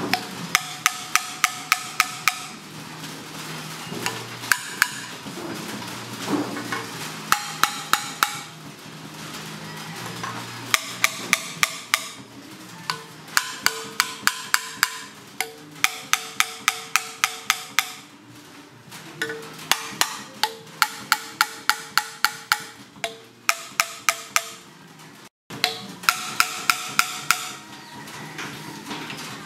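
A hammer tapping on the cylinder head of a Hino six-cylinder engine in quick runs of strikes, about four or five a second, each with a short metallic ring.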